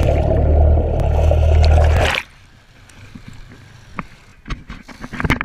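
Boat's outboard motor and churning wake heard with the microphone under water: a loud, steady, muffled rumble. It cuts off suddenly about two seconds in as the camera comes out of the water, leaving faint dripping and splashing with a few sharp knocks near the end.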